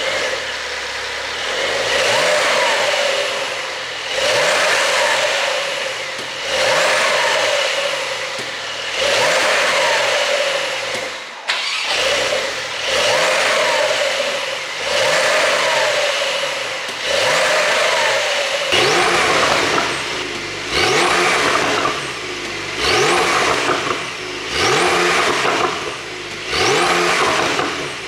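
Porsche 911 (992) Carrera's twin-turbo flat-six, ECU-tuned for overrun pops, revved in quick blips about every two seconds, rising then falling each time, with popping and crackling from the exhaust as the revs drop. A single sharp crack stands out about eleven seconds in.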